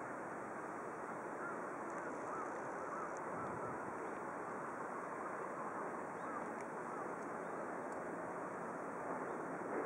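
Steady outdoor rushing noise, wind in the grass and on the microphone, with a few faint short chirps a few seconds in.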